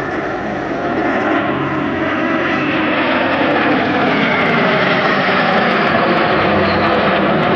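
A formation of Fouga Magister jet trainers flying past, their Turbomeca Marboré turbojets making continuous jet noise that builds steadily in loudness. A whine falls in pitch about halfway through as the jets pass.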